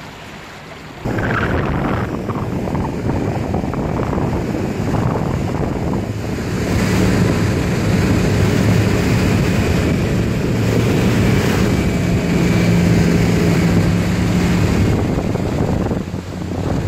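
Speedboat engine running steadily at speed under rushing wind and water noise, with wind buffeting the microphone. The sound comes in suddenly about a second in, and the engine's steady hum grows louder about halfway through.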